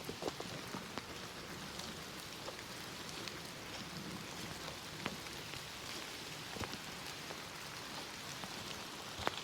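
Steady rain falling, with scattered sharp taps of individual drops close by. It is starting to rain harder.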